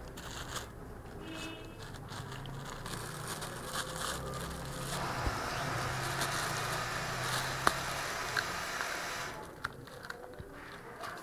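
A cat biting and crunching raw chicken feet, irregular crackles and small cracks with one sharp crack about three-quarters of the way through, and the plastic bag beneath them crinkling.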